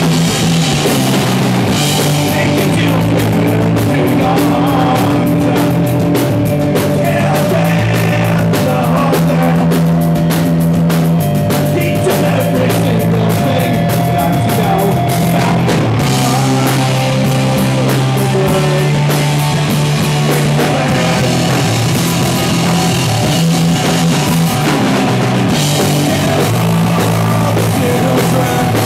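Live rock band playing loud: distorted electric guitars, bass guitar and drum kit. The dense cymbal-heavy drumming drops back about halfway through and comes back in near the end.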